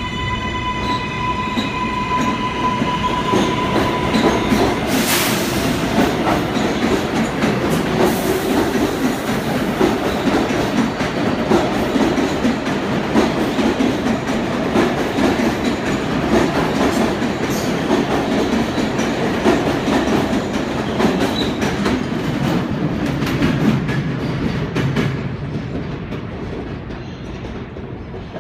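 R188 subway train's Bombardier MITRAC IGBT inverter and AC traction motors whining as it accelerates away, holding one high tone for the first five seconds. Then the wheels clatter and rumble over the rails as the cars pass, fading near the end as the train leaves.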